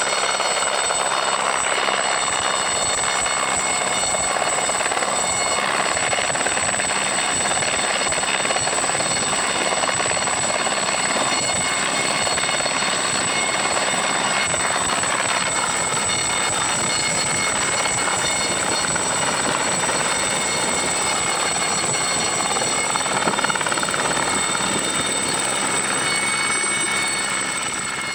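Aérospatiale SA.318C Alouette II helicopter hovering low and setting down. Its Turbomeca Astazou turboshaft gives a steady high whine over the dense, even rotor noise.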